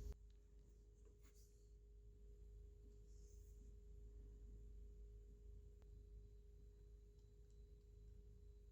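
Near silence: room tone with a faint steady tone and a low hum, and a few faint ticks.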